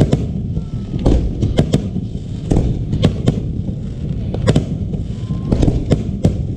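Aerial fireworks bursting: about a dozen sharp bangs at irregular intervals, over a constant low rumble.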